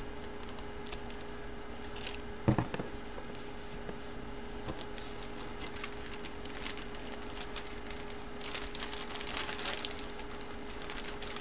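Faint rustling and light clicks of a jersey being handled and set aside, with one soft knock about two and a half seconds in, over a faint steady hum.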